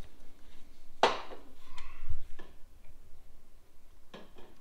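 Metal clicks and a dull knock as the cylinder and piston of a BMW R100 boxer engine are handled and worked into place: a sharp click about a second in, a low knock a second later, and another click near the end.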